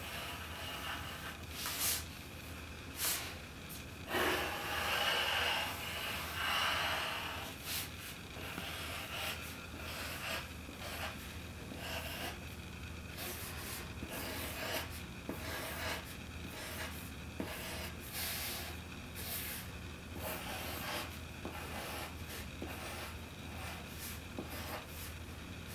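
Pencil scratching and rubbing on black paper in many short strokes as a sketch is traced, louder for a few seconds about four seconds in, over a steady low hum.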